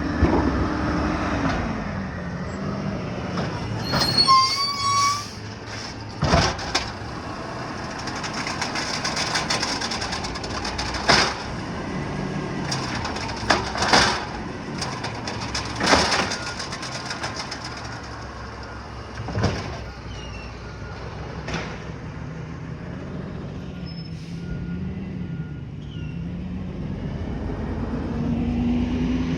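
Garbage truck's engine slowing and then running steadily, with a brief high squeal about four seconds in and several sharp bangs through the middle. Near the end the engine speeds up again.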